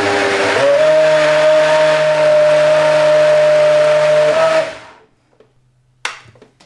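Countertop blender puréeing soaked cashews into a thick paste. The motor's pitch steps up about half a second in, runs steady, then winds down and stops shortly before the end, followed by a short clack.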